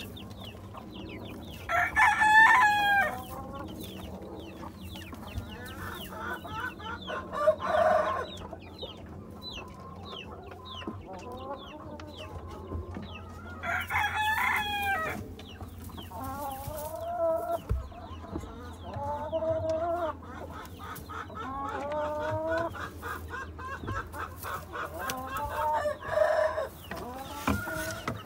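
Shamo chickens: a rooster crows twice, about two seconds in and again about fourteen seconds in, with hens clucking and giving short calls throughout.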